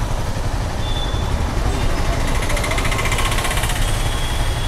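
Honda CBR motorcycle engine running at low speed with a steady low rumble; a hiss swells briefly in the middle.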